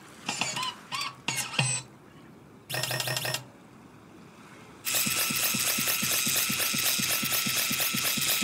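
Cartoon sound effects of a toy robot. A few short squeaky chirps and a brief electronic buzz come first. From about five seconds in comes a steady mechanical whirring with rapid ticking as the robot trundles away across the sand.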